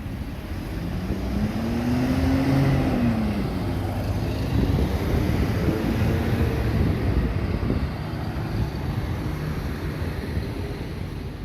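A city bus going past: its engine note rises and then falls about two to three seconds in, over steady road noise, with wind buffeting the microphone.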